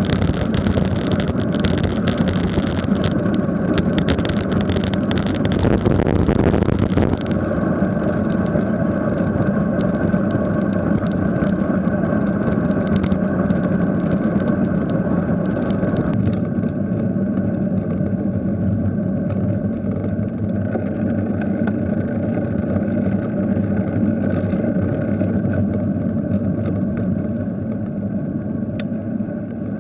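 Wind rushing over the microphone of a camera on a road bike moving at about 20 mph, with tyre noise from the lane. The rush is loudest for the first seven seconds and eases as the bike slows.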